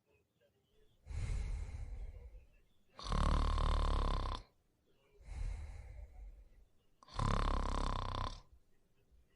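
A sleeping person snoring in a slow, regular rhythm: two loud snores about four seconds apart, each after a quieter breath.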